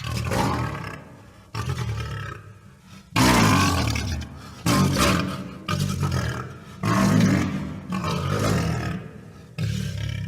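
Tiger growling and snarling: about eight harsh growls in a row, roughly one every second and a half. Each starts suddenly and fades away.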